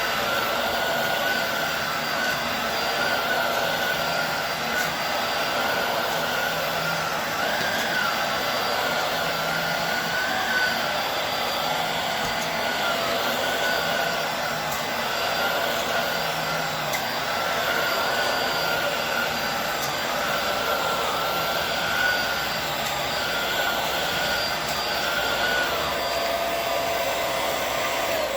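Hoover Air Steerable WindTunnel upright vacuum cleaner running steadily on a rug, its motor whine wavering slightly in pitch.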